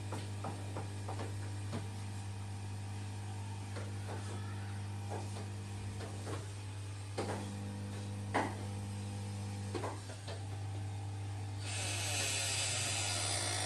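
Electric massage chair running: a steady motor hum with a second motor tone that stops and starts, and scattered light clicks. A louder hiss comes in near the end.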